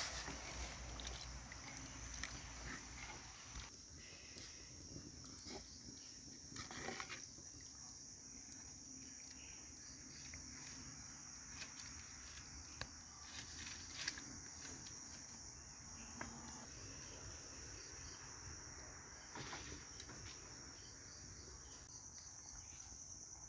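Faint, steady, high-pitched insect trill, like crickets, with a few scattered soft clicks and pops.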